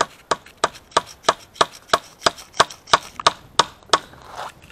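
The butt of an axe hammering a nail into wood: a steady run of sharp strikes, about three a second, stopping shortly before the end.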